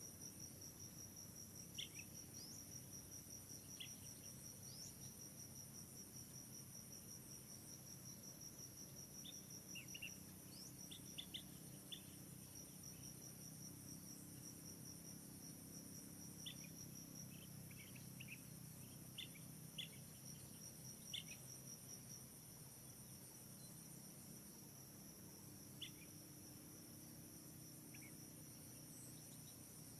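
Insects, crickets by their sound, trilling steadily in high, evenly pulsed tones, with scattered short high chirps.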